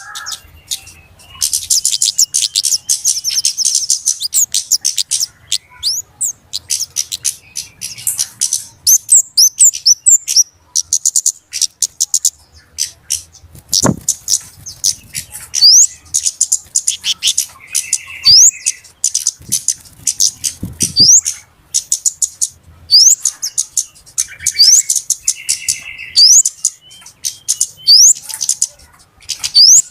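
Flowerpeckers (cabe-cabean) calling in a bird-lure recording: fast, sharp high ticking calls mixed with repeated short rising whistles and a few lower buzzy notes. Two or three low thumps sound about midway.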